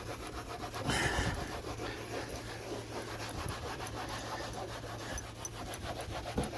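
A towel being scrubbed hard back and forth over a refrigerator door in quick, even strokes, a few rubs a second.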